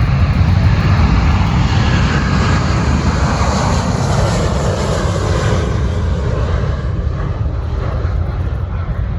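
Boeing 777-200ER twin jet engines at takeoff power: a loud roar with a deep rumble that swells to its peak about four seconds in, then thins out as the aircraft moves away.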